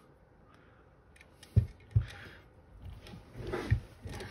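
Handling noise from a metal rear-sight pusher tool with a pistol slide clamped in it: two sharp knocks about a second and a half and two seconds in, and a lighter one near the end, with light rubbing and clicking between them.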